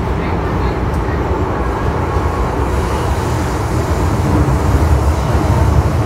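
MTR M-train subway car running through a tunnel, heard from inside the car: a loud, steady rumble of wheels on rail, growing a little louder and hissier about four seconds in.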